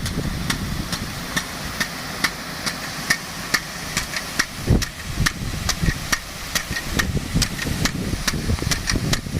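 DN-50 big-gun sprinkler knocking steadily as its swing arm strikes the water jet to step it round, about two knocks a second, over a steady low rumble of the engine-driven pump and the spray.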